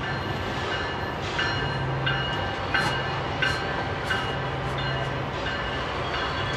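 Loaded coal train led by GE ES44AH diesel locomotives passing: a steady low locomotive engine hum, with a sharp metallic clack that rings briefly from the wheels about every two-thirds of a second.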